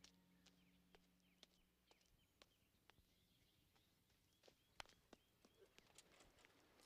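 Near silence: faint outdoor ambience with a few short bird chirps and soft, irregular clicks.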